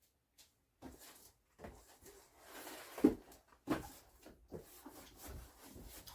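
Hands working a cardboard shipping box and packing tape: scattered taps, rustles and scrapes, with a sharp knock about three seconds in.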